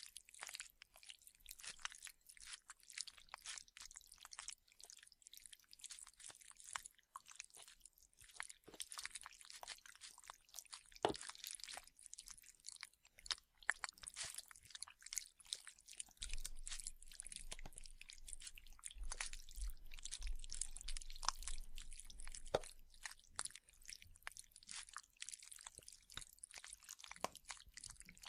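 Wet, close-up chewing, biting and squelching, a dense run of irregular smacks and crackles made as a zombie flesh-eating sound effect. A low rumble sits under it for several seconds in the middle.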